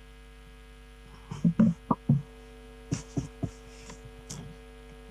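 Steady electrical hum from the sound system, with a scatter of short clicks and knocks in the middle of the stretch.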